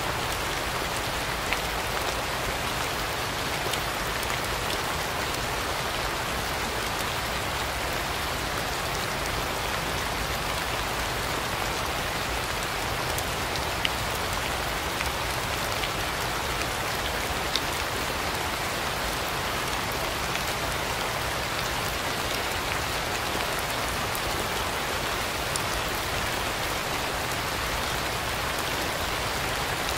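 Steady rain falling, an even hiss, with a few louder single drops standing out now and then.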